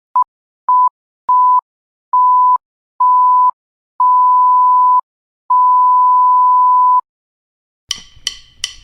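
An electronic beep tone at one steady pitch, sounded seven times, each beep longer than the last and the final one about a second and a half long. Near the end come four sharp clicks.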